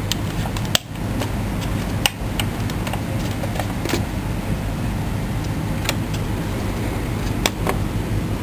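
Plastic hatches on a 1:18-scale toy tank clicking as they are handled and snapped shut: about six sharp clicks at irregular intervals, over a steady low hum and hiss.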